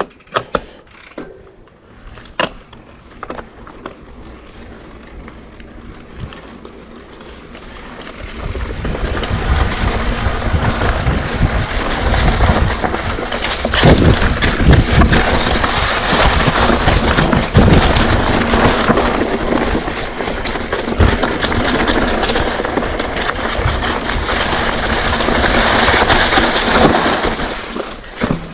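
Mountain bike riding down a dirt singletrack: tyre noise on the trail with the bike rattling and knocking over bumps, quiet with a few clicks at first and much louder and rougher from about eight seconds in.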